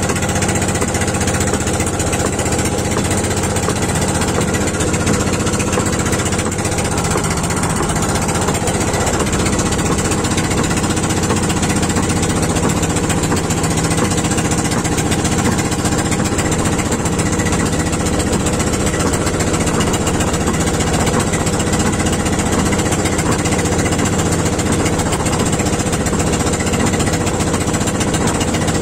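Engine of a motorized outrigger boat (bangka) running steadily at cruising speed while under way, loud and unchanging.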